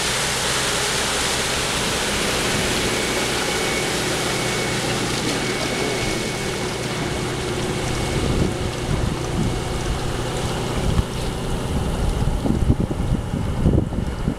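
Sightseeing motorboat running past at speed, its engine and hull spray making a steady rush with a faint steady tone in it. From about halfway on, wind buffets the microphone more and more, and the rush thins near the end as the boat moves away.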